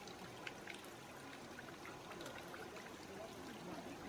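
Faint, scattered crunching clicks of a giant panda chewing a bamboo stalk, over a steady background hiss.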